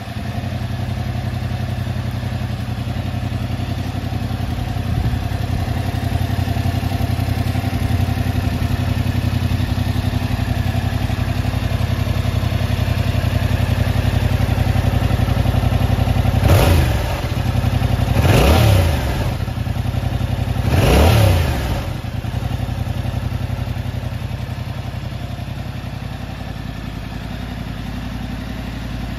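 2023 Yamaha YZF-R7's 689 cc parallel-twin engine idling steadily, with three quick throttle blips in the second half, each revving up and dropping straight back to idle.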